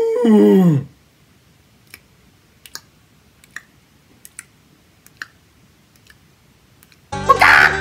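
A man's farm-animal impression: a voiced call that slides up and then down in pitch, ending about a second in. Then come sparse, irregular mouth clicks and lip pops over near silence. Loud banjo-style music cuts in near the end.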